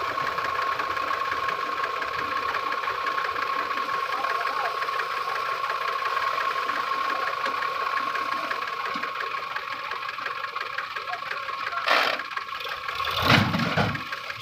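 Sonalika DI 45 RX tractor's diesel engine running under load with a steady high whine as its hydraulics tip the trolley up to unload soil. Two sharp clunks near the end, the second louder.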